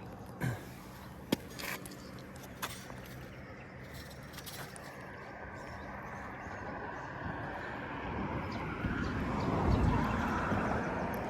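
A vehicle passing by, its noise building over several seconds to a peak near the end and then easing off. A few sharp clicks and knocks sound in the first few seconds.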